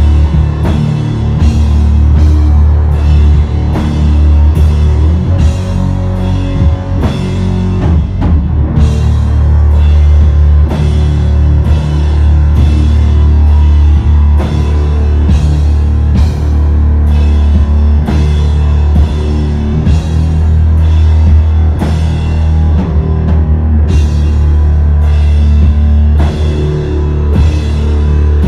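Sludge metal band playing live and loud: distorted guitars and bass holding deep, sustained notes under a slow, steady beat of drum and cymbal hits, about one every three-quarters of a second.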